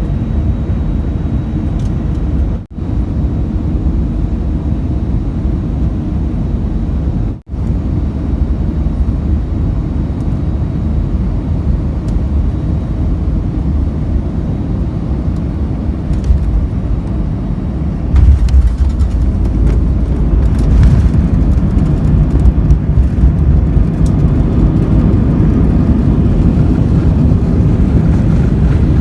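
Airliner cabin noise: a steady low rumble of jet engines and airflow heard from inside the cabin, broken twice by brief gaps in the first eight seconds and growing louder about eighteen seconds in.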